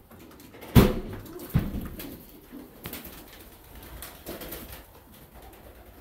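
Many pigeons cooing together in a loft, with two sudden loud thumps a little under a second apart, about a second in.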